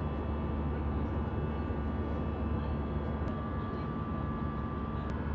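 Steady cabin noise of a jet airliner in cruise, heard inside the cabin: a constant low rumble of engines and airflow, with a faint steady whine that drops out near the end.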